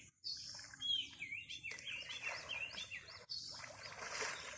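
A small bird singing: a run of quick, wavering chirps from about one to three seconds in, over a rustling, noisy background.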